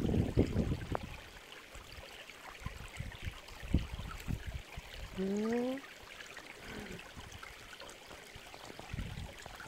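Small rocky mountain stream trickling and gurgling. A few low thumps come near the start, and a short rising tone sounds once about halfway through.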